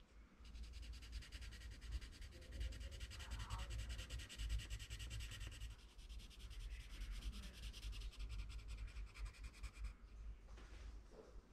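Coloured pencil shading on paper: a quiet, fast, even scratching of rapid back-and-forth strokes, which stops near the end.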